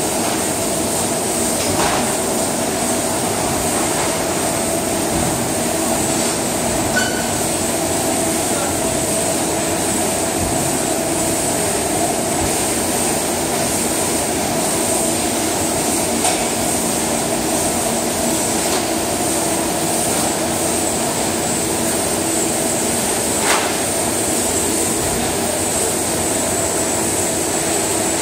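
Steady mechanical noise of processing-plant machinery and cooling fans: a constant hum with a high whine, broken by a few short clicks and knocks.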